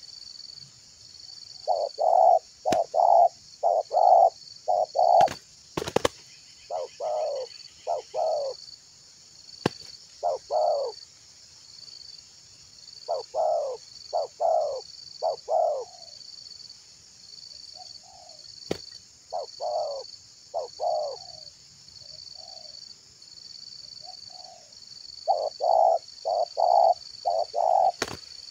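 Spotted doves cooing in repeated phrases of two to five short, low coo notes, with pauses between phrases. A steady high buzz pulsing about once or twice a second runs underneath, and a few sharp clicks cut in, the loudest about six seconds in.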